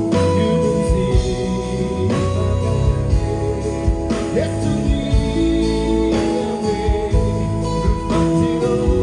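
Gospel music played by a band, with guitar over a steady bass and held chords that change about every two seconds.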